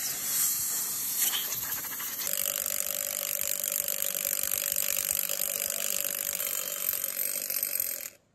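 Compressed air hissing from an air blow gun, then about two seconds in, a cordless impact wrench runs steadily with a steady whine, spinning a cylindrical part clamped in a vise, and stops near the end.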